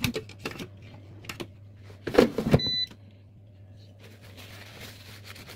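Princess digital air fryer: its basket is pushed shut with a clunk about two seconds in, followed by a short electronic beep, and from about four seconds its fan runs with a steady soft whoosh. Some lighter clicks and knocks come before it.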